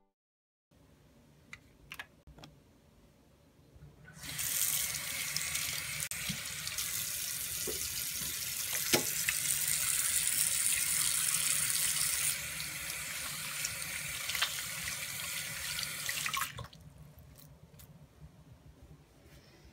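Bathroom sink faucet running into the basin while hands are washed under the stream. The water comes on about four seconds in and is shut off sharply a few seconds before the end, with a few faint clicks before it starts.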